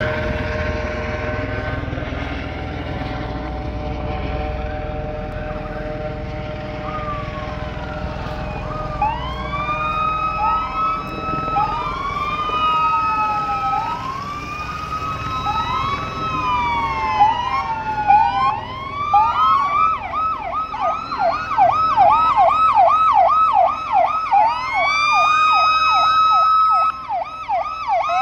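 Several police car sirens sounding together over a low vehicle rumble. Slow rising-and-falling wails come in after several seconds of steady held tones, and the sirens switch to a fast yelp of about two to three sweeps a second a little past the middle.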